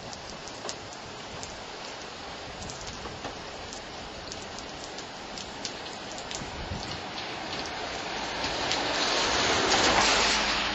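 Typhoon Melor's storm-force wind and driving rain: a steady rush peppered with sharp raindrop ticks. A stronger gust builds about eight seconds in and peaks near the end before easing.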